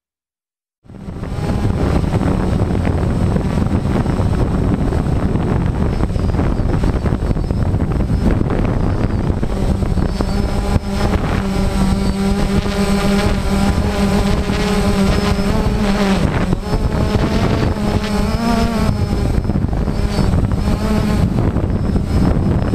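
Multirotor drone's electric motors and propellers buzzing steadily, heard from the drone's own camera, with a humming tone whose pitch wavers now and then in the second half. It starts about a second in, after a brief silence.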